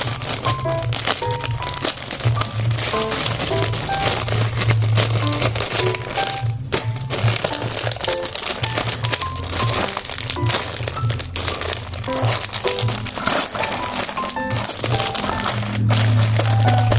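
Paper crinkling and rustling from close handling of a paper squishy, with many irregular crackles, over background music with short plucked-sounding notes and a steady low hum.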